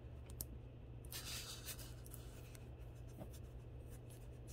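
Faint rubbing and scratching from hands handling a costume-jewelry ring, with a brief scratchy rustle about a second in and a few small clicks, over a low steady hum.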